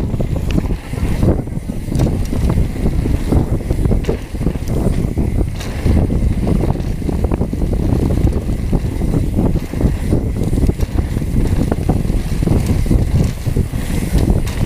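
Heavy wind buffeting on an action camera's microphone as a mountain bike is ridden fast downhill on a dirt trail. Many rapid knocks and rattles from the bike jolting over bumps run through it.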